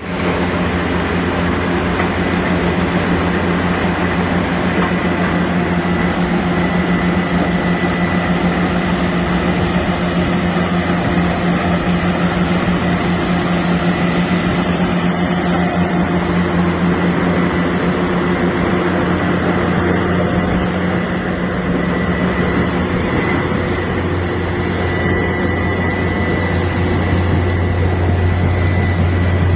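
Metso Lokotrack LT200HPS track-mounted cone crusher running: a steady heavy machine drone with a low hum and a faint high whine throughout.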